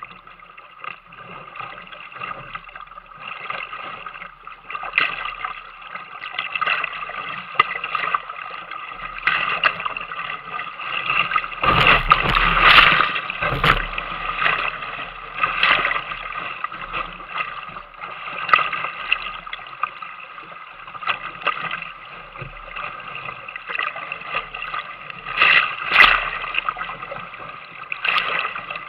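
Whitewater rushing and splashing around a kayak running rapids, with louder splashes breaking over the boat, the biggest about twelve seconds in and again near the end.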